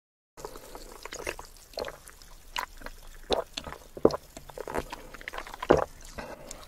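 Close-miked wet mouth sounds of sipping iced water: irregular smacks, slurps and gulps. They begin after a brief silence, with one loud gulp near the end.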